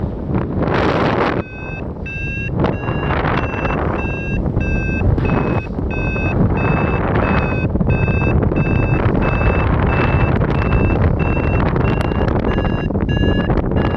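Paraglider variometer beeping in a steady high tone about twice a second, the climb signal that the glider is rising. The beeps begin about a second and a half in, over loud wind rushing on the microphone.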